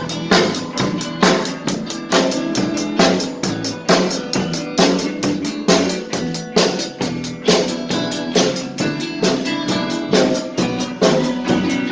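Drum kit played in a steady beat, bass drum and snare striking regularly, along with a band whose other instruments hold sustained pitched notes underneath.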